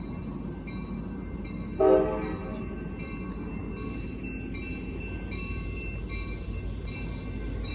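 Passenger train cars rolling past, a steady rumble with faint high squeal-like tones over it. About two seconds in comes one brief, loud blast of a tone.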